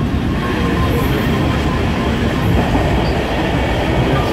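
Steady rumble of a moving railway carriage's wheels on the track, heard from inside the carriage. From about halfway through, added noise from a modern electric suburban train passing close alongside.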